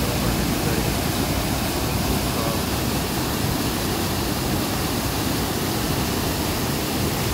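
Waterfall in spate after heavy rain: a steady, loud rush of whitewater pouring over rocks.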